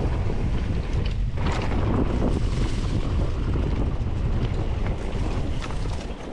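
Wind buffeting the microphone of a camera on a moving mountain bike, a loud steady rumble, with scattered clicks and rattles from the bike on the trail.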